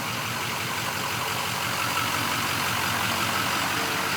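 Car engine running steadily at idle under a constant, even hiss.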